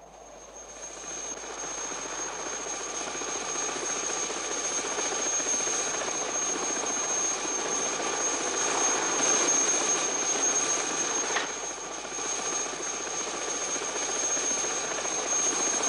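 Helicopter in flight: a steady drone of rotor and engine that grows louder over the first few seconds, then holds.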